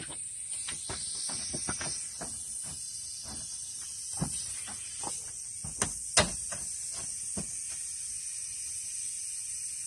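Pneumatic nail gun firing into PVC brick moulding: two sharp shots close together about six seconds in, with lighter knocks and handling taps before them, over a steady high hiss.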